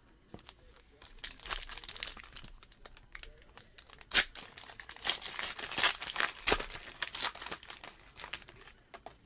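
Foil wrapper of a 2019 Certified football card pack crinkling and tearing as it is ripped open by hand. It starts about a second in, with a few sharp louder rips through the middle.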